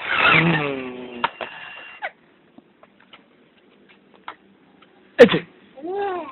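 Baby vocalizing: a loud squeal that falls in pitch, then light scattered clicks and taps from hands on plastic baby walker trays, a sharp squeal about five seconds in, and a short rising-and-falling 'ah' near the end.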